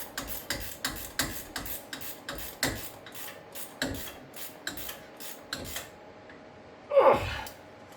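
Ratchet wrench clicking steadily, about three clicks a second, as it runs caliper bracket bolts down on a hub assembly job. A louder falling scrape comes near the end.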